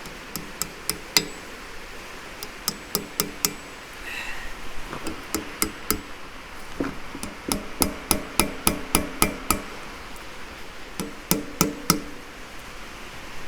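Hammer tapping on the steel parts of a hydraulic track-tensioner cylinder during a seal rebuild, in bursts of light, quick taps with a short metallic ring. The fastest run comes about eight seconds in, at two or three taps a second.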